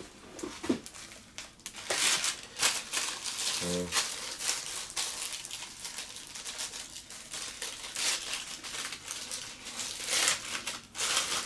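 Packaging crinkling and rustling in irregular bursts as a parcel is handled and opened by hand.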